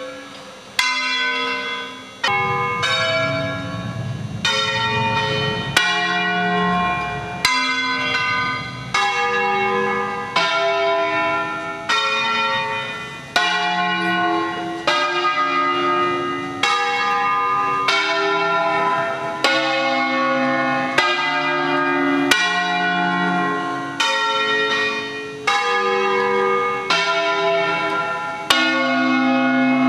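Church tower bells, rung electrically, ringing the solemn signal: one stroke about every second, each bell a different pitch, every stroke ringing on and fading into the next.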